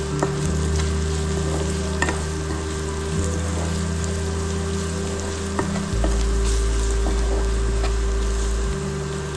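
Curry base sizzling as it fries in a pan while being stirred, with a few sharp knocks of the spoon against the pan.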